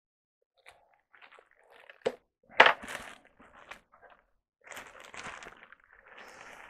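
Plastic bags and foam packing sheets rustling and crinkling as foam model-jet wings are handled and lifted out of a polystyrene box. There is a sharp click about two seconds in, the loudest rustle just after, and steadier crinkling in the last couple of seconds.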